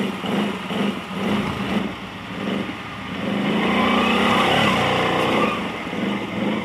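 Can-Am Renegade XMR 1000 ATV's V-twin engine revved in quick repeated bursts, then held at high revs for about two seconds in the middle before pulsing again: the quad is stuck in broken ice and slush and is being throttled to break it free.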